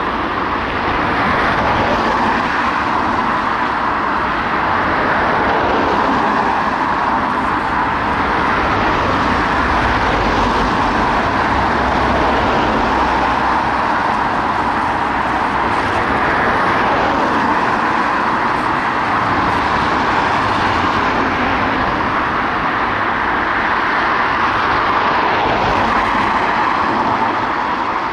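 Road traffic: cars driving past in a steady stream, the tyre and engine noise swelling and fading as each one goes by.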